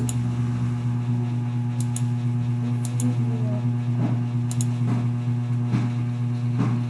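A steady low hum runs loud throughout, with computer mouse clicks over it: four quick press-and-release pairs in the first five seconds, and a few softer knocks later on.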